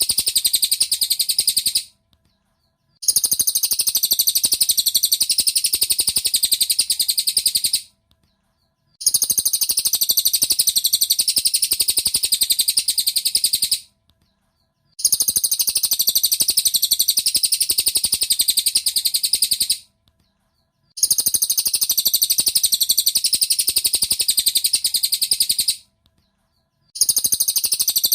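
Cililin bird song played as a training (masteran) recording: rapid, high chirping in bouts of about five seconds, each broken by a silent gap of about a second, repeating evenly.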